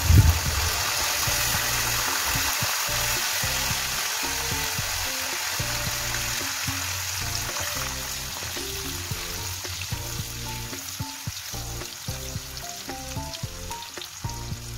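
Hot oil sizzling in a wok as turmeric-battered pieces deep-fry, loudest at the start and slowly dying down as they are stirred with a metal spatula. Background music with stepped notes rises over the second half.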